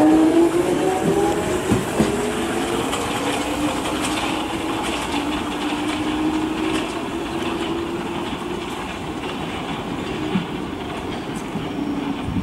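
London Underground 1996-stock Jubilee line train moving off. The traction motors' whine rises in pitch over the first couple of seconds, then holds as a steady tone while the train runs. A few clacks of the wheels over rail joints sound over the rumble of the wheels.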